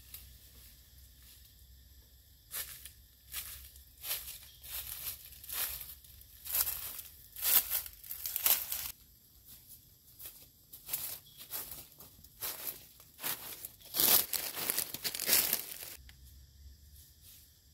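Dry leaves and brush crunching and rustling in irregular bursts as a person moves through leaf litter and handles plants, loudest about two thirds of the way in, then dying down near the end.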